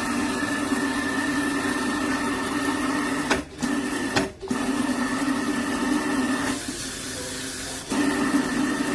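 Water running from a pull-down kitchen faucet into the sink with a steady hiss and a faint whistling tone. It cuts out briefly twice near the middle, and about two-thirds of the way through it settles to a slightly quieter, different-toned flow.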